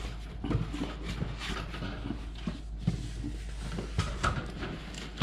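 Corrugated cardboard box handled and opened by hand: scattered rustling and scraping of cardboard, with a few light knocks as the box is moved and a louder knock right at the end.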